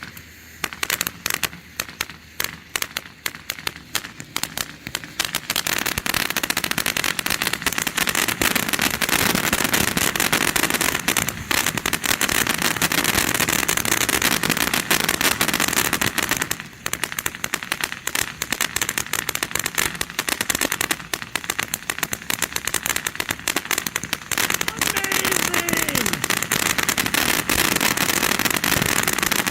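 Consumer firework crackling: scattered pops at first, then a dense, continuous crackle from about five seconds in that briefly thins out around the middle.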